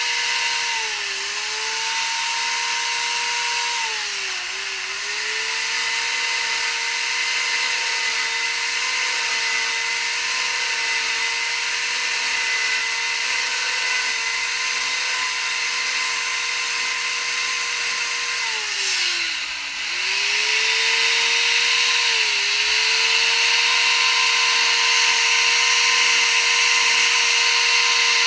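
Carving chainsaw running at high speed while cutting feather grooves into wood. Its steady pitch sags briefly under load a few times, most deeply about two-thirds of the way through, then recovers and runs slightly louder.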